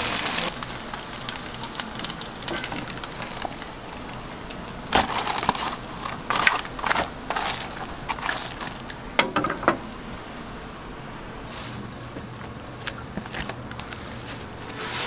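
Flat dumplings sizzling in hot oil in a frying pan, the sizzle dropping off about four seconds in. Then a run of sharp clicks, scrapes and crinkles as metal tongs lift the crisp fried dumplings into a paper-lined tray.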